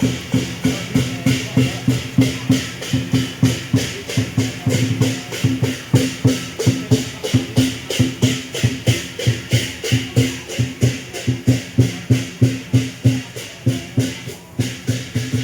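Temple-procession music: a steady, fast beat of struck percussion, about three strikes a second, over held low tones. The music drops out briefly near the end.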